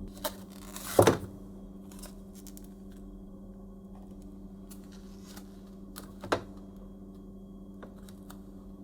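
Objects being handled: a sharp knock about a second in and another a little after six seconds, with lighter clicks between, over a steady low hum.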